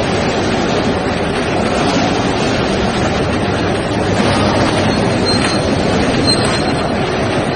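Pole cage welding machine for precast concrete pole reinforcement running: a loud, steady mechanical noise, with faint brief high squeals about five to six and a half seconds in.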